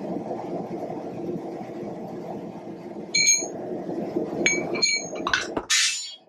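Steel blacksmithing tools clinking against an anvil as the hammer and a tapered drift are set down and tongs are picked up: several sharp, ringing clinks from about three seconds in, over a steady low rushing noise. A short hiss near the end, then the sound cuts off.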